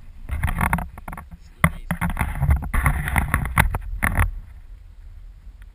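Rubbing and knocking of a small action camera being handled and turned around, over wind rumble on the microphone. After about four seconds the handling stops and only fainter wind is left.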